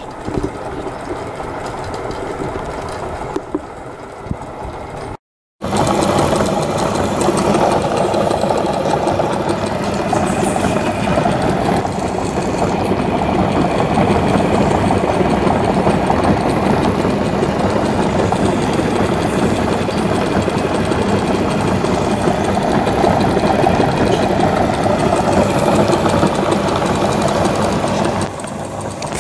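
A small homemade engine rig with a spinning flywheel runs steadily with a fast mechanical rattle as it is vibration-tested, clamped to a workbench. About five seconds in the sound cuts out briefly, then resumes louder, with the rig now packed in expanding foam to damp the vibration.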